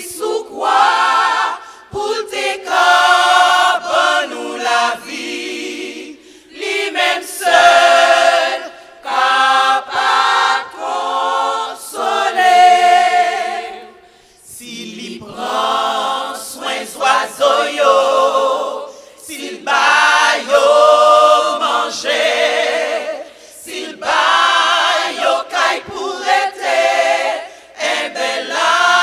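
Women's gospel choir singing a cappella in several voices, in phrases separated by brief pauses.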